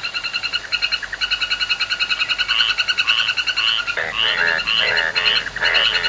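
Male frogs of several species croaking together in advertisement calls. A fast pulsing trill runs throughout, and about four seconds in it is joined by louder, lower croaks repeating about twice a second.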